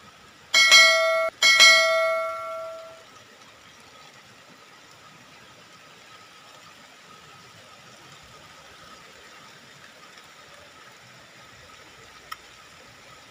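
Two strikes of a bright notification-bell sound effect from a subscribe-button overlay, about a second apart, each ringing on and fading out by about three seconds in. After that only a faint steady hiss of rain.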